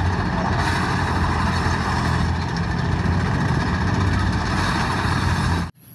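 Engine sound of an armoured tank running steadily, a deep rumble under a rough noise, cutting off abruptly near the end.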